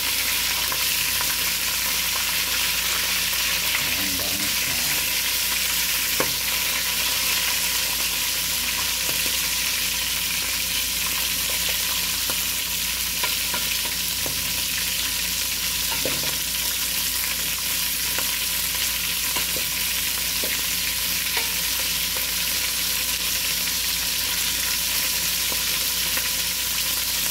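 Chunks of lamb sizzling steadily as they brown in hot oil in an aluminium pot, stirred and turned with a wooden spoon, with now and then a light knock of the spoon against the meat or pot.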